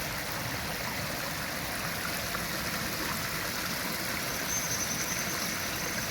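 Running water of a river, a steady rushing.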